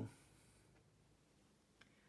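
Near silence: room tone, with one faint click near the end.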